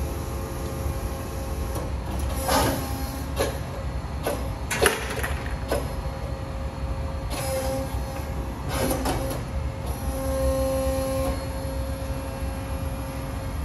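Boy 35A hydraulic injection molding machine running through its cycle: a steady low hum, with a run of short hissing, clunking strokes from about two to six seconds in and twice more a little later. A pitched whine comes in briefly near the middle and again for about a second around ten seconds in.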